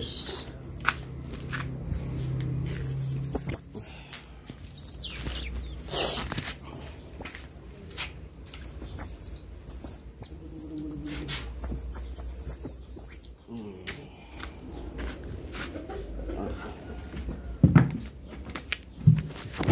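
Baby otters calling with high, wavering chirps and squeaks, the calls of hungry pups, in two spells: a short one a few seconds in and a longer one in the middle. Sandal footsteps and scuffs on concrete click underneath.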